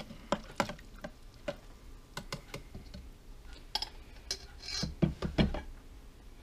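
Wire whisk clicking irregularly against the sides of a plastic container while stirring sour cream into a sauce, followed in the second half by a few louder knocks as the whisk is laid on the pan and the container is set aside.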